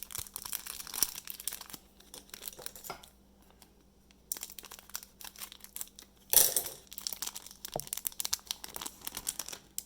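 Plastic trading-card pack wrapper crinkling and tearing as a pack is handled and opened, in crackly bursts with a short pause about three seconds in and the loudest burst about six seconds in.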